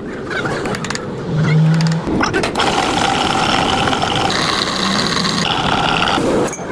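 Electric drill running as a twist bit bores into a steel plate: a steady whine that starts about two and a half seconds in and shifts pitch twice.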